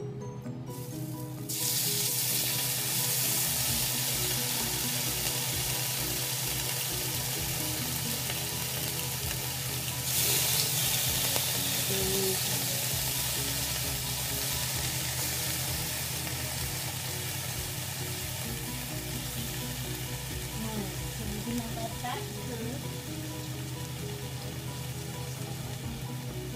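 Turkey bacon sizzling in a hot stainless steel frying pan. The sizzle starts suddenly about a second and a half in as the first slices go in, gets louder about ten seconds in as more slices are laid in, then slowly eases.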